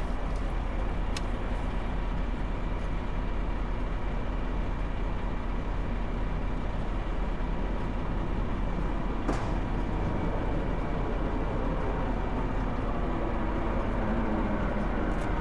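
Semi-truck's diesel engine idling steadily, a constant low hum, with a couple of light clicks, about a second in and again about nine seconds in.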